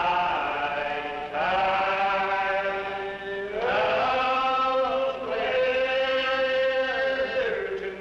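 A church congregation singing a slow hymn together, each note drawn out for seconds and sliding up into the next.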